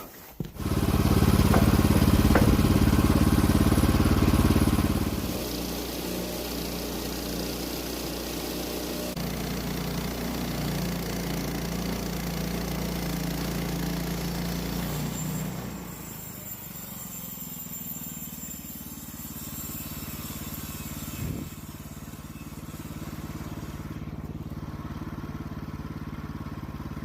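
An engine running loudly for the first few seconds, then dropping to a quieter steady idle. It drops again to a lower level about sixteen seconds in.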